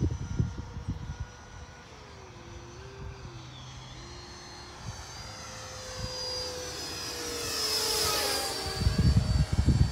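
Low-flying fighter jet approaching, its engine growing louder to a peak about eight seconds in with a sweeping whine as it passes overhead. A rough low rumble follows near the end.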